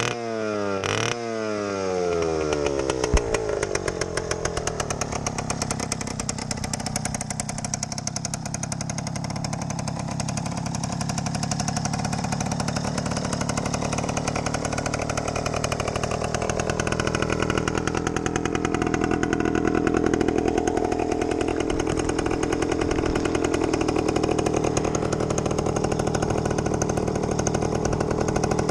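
Yamaha YG5T Trailmaster's small two-stroke single running. In the first few seconds its revs fall away after brief throttle blips, then it settles into a steady idle with a rapid, even exhaust pulse.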